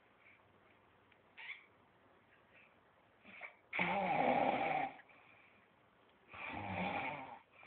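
A sleeping man snoring: two loud snores in the second half, each about a second long, a bit over a second apart.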